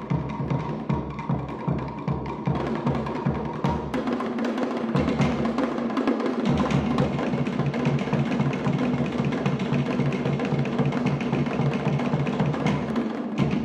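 Percussion-driven music with rapid, steady drum pulses.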